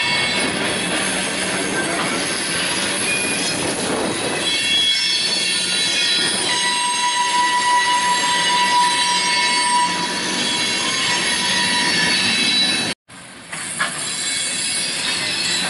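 Freight train of boxcars rolling past, its wheels squealing against the rails in steady high-pitched tones over the rumble of the cars. Near the end the sound cuts out for a moment, then the passing train resumes.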